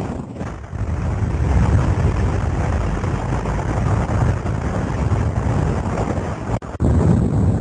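Heavy wind rushing over the microphone in skydiving freefall, a steady loud buffeting rush that cuts out for a moment about two-thirds of the way through.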